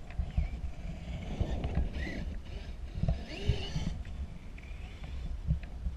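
Wind buffeting the microphone, with a distant electric RC monster truck running across grass on light throttle, its motor whining up briefly about three seconds in.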